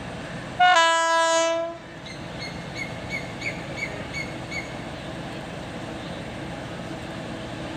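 WAP7 electric locomotive's horn sounding one long blast about half a second in, lasting just over a second, as the train approaches. A run of about eight short high chirps follows over the steady rumble of the oncoming train.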